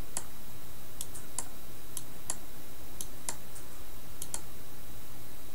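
Computer mouse clicking about ten times at an uneven pace, some clicks in quick pairs, stopping a little after four seconds in, over a steady low hum and hiss.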